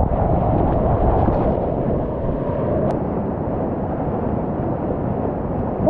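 Whitewater rapids rushing around a kayak close to the microphone: a loud, steady, dense rush of churning water.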